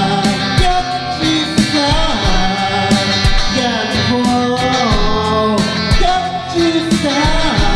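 Rock-style band music with drums and guitar, over which a melody line slides up and down in pitch.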